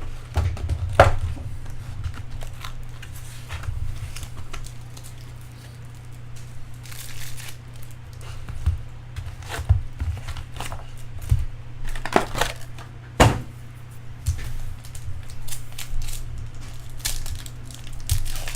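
Plastic wrapping and foil card packs crinkling and tearing as a box of Bowman Chrome baseball cards is opened, with scattered handling clicks and knocks. A steady low hum runs underneath.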